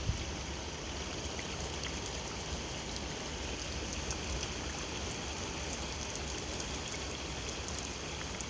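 Steady rain falling during a thunderstorm, with the fine ticking of individual drops striking a surface.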